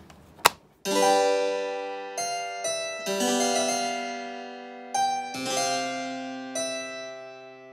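Harpsichord-like keyboard music: a slow series of chords, each struck and left to fade, starting about a second in. A single sharp click comes just before the music.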